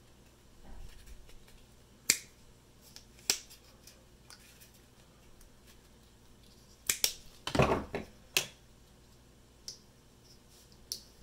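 Scattered sharp clicks and snips of pliers or cutters handling heat-shrink tubing over soldered wire joints, with one heavier knock about two-thirds of the way through.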